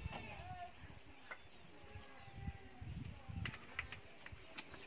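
A few knocks, scuffs and clicks from climbing about on a wooden post and fence against a block wall. Behind them a faint high chirp repeats about three times a second.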